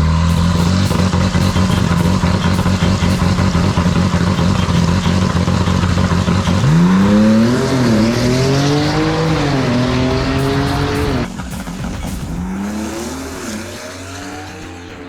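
Drag car's twin-turbo inline-six engine: a steady, loud engine note with a rough, crackling hiss, then about six and a half seconds in it accelerates hard, the pitch rising and falling back at each gear shift. About 11 s in the sound drops suddenly to a fainter run that rises again.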